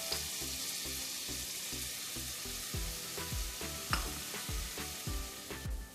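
Onions frying in hot oil in a pan: a steady sizzle, with short scraping strokes of stirring from about halfway through.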